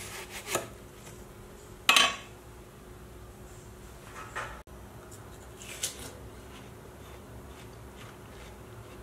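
Kitchen knife cutting watermelon on a wooden cutting board, knocking against the board. One sharp knock about two seconds in is the loudest, with a few lighter taps and clicks after it.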